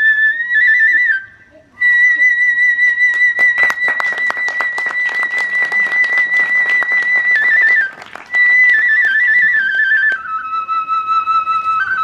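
Kagura flute (fue, a transverse bamboo flute) playing long, high held notes with a wavering vibrato, breaking off twice and stepping down in pitch near the end. From about three to seven seconds in, a rapid run of percussion strokes plays under it.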